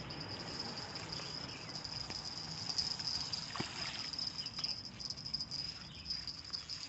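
Steady high-pitched drone of an insect chorus, with scattered faint ticks and rustles underneath.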